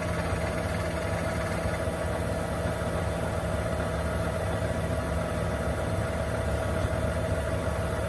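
John Deere tractor engine idling steadily, a constant low hum with no change in speed.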